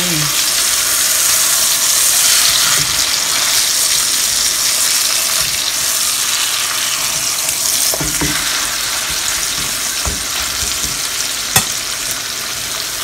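Pork chops sizzling in butter in a frying pan, a steady hiss throughout. Metal tongs turning the chops make a few light knocks in the second half and one sharp click on the pan near the end.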